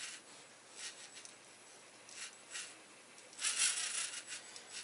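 Faint scraping and rubbing handling noise: a few short rustles, then a louder rub lasting under a second about three and a half seconds in.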